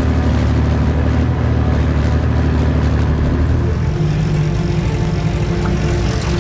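Military vehicle engine running steadily, its note shifting about four seconds in.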